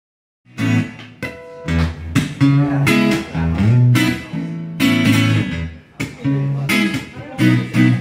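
Solo acoustic guitar playing chords as the intro to a song, each chord struck sharply and left ringing. It starts about half a second in.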